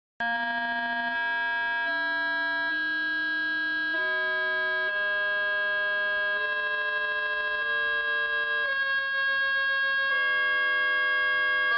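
Synthesized modulated tones, a sci-fi sound effect: one continuous electronic tone made of many pitches at once, its lowest pitch stepping upward to a new set about once a second. Around the ninth second it briefly wavers.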